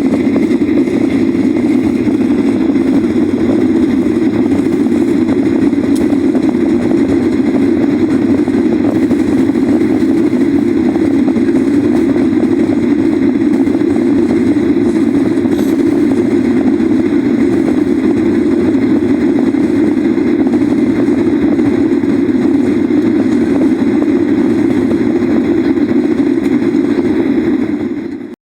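Boeing 737 jet engines running steadily at takeoff power, a loud, even roar that does not change, cutting off abruptly at the very end.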